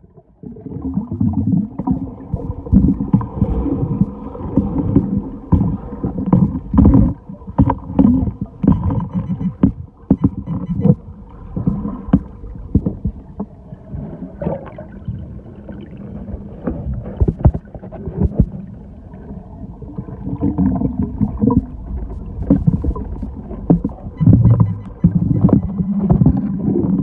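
Water sloshing and splashing, with irregular knocks and thuds and a faint steady low hum underneath.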